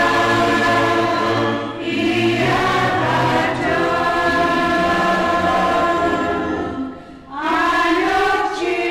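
A choir of Choctaw singers singing a hymn-like song in long held notes, with a short break between phrases about seven seconds in.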